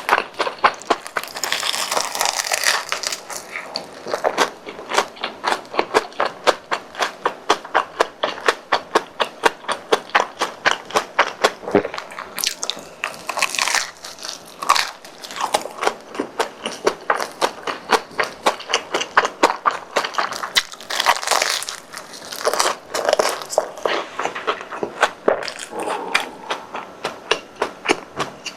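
Close-miked chewing of crispy deep-fried croquettes: a quick, regular run of crunches, with a few louder crackling stretches where fresh bites break the crisp crust.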